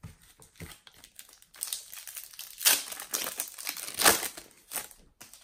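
Foil trading-card packet being torn open and crinkled by hand. A few faint ticks come first. From about one and a half seconds in there is dense crackling, loudest in two sharp peaks, before it dies away near the end.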